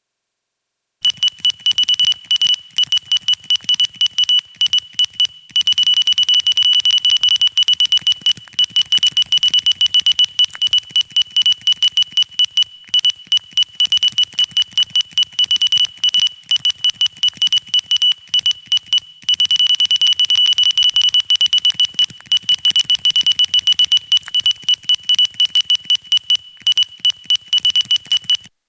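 Synthesized Morse code: a high-pitched electronic beep keyed rapidly on and off in irregular short and long tones over a faint static hiss, starting about a second in and stopping just before the end.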